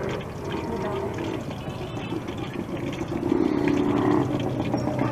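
Battered eggs (kwek-kwek) sizzling in a wok of hot oil, over a steady background of street traffic. The traffic noise grows louder about three seconds in.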